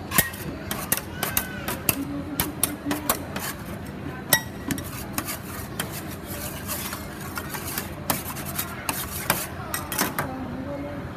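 Two metal spatulas chopping and scraping green tea ice cream on a stainless steel cold plate: quick, irregular clinks and scrapes of steel on steel as the mix freezes on the pan.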